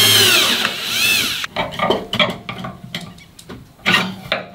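DeWalt cordless drill running in short trigger pulls: its motor whine rises and falls twice in the first second and a half. It is followed by scattered clicks and knocks as a plastic bracket is handled against the mounting.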